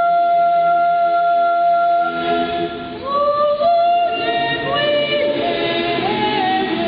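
Boy treble soloist singing a long held high note, then, after a short breath about two and a half seconds in, going on with the melody while the boys' choir sings softer lower parts beneath him.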